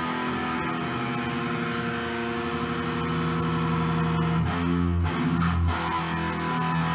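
Slow, heavy dark metal music: held electric guitar chords over a low bass, moving to a new chord about four seconds in.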